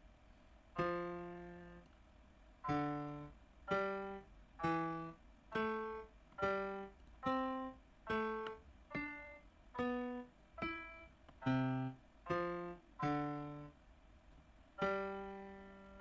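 Reason ID8 grand piano patch playing a step-sequenced line of single notes at varying pitches, roughly one a second. Each note strikes and then decays, and there is a short pause before the last one.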